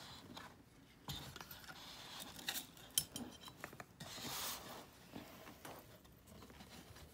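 Quiet handling noises as an elf puppet is lifted and seated on a small wooden chair: scattered light clicks and taps, the sharpest about three seconds in, and a soft rustle of fabric and fur a little after.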